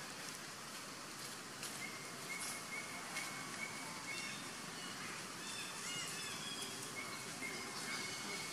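Natural outdoor ambience: a steady background hiss with a high-pitched call repeated rapidly at one pitch in two runs of about two seconds each, and a few faint rustles.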